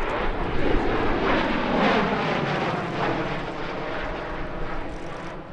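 An Aero Commander airplane flying past, its pitch falling as it goes by and the sound fading toward the end.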